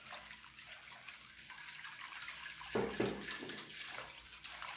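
Danish dough whisk stirring yeast and sugar through lukewarm water in a glass bowl: soft, continuous swishing and sloshing of the water, with one louder stroke about three seconds in.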